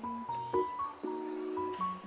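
Background music: a melody of short held notes moving over sustained lower chords.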